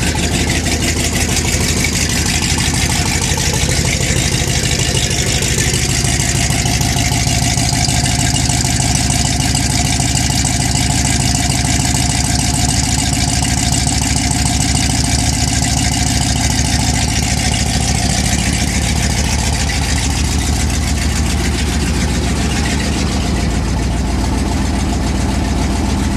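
A 1979 Ford F-150's 460 big-block V8 idling steadily, just after a cold start in 15-degree weather.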